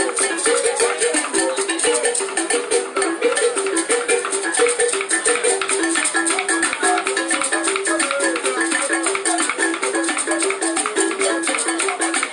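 Upbeat dance music with a fast, even shaker rattle over a repeating plucked-string riff of short stepping notes.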